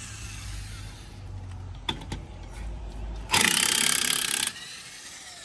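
Impact wrench working a lug nut on a pickup's wheel: a couple of clicks, then one loud burst of about a second.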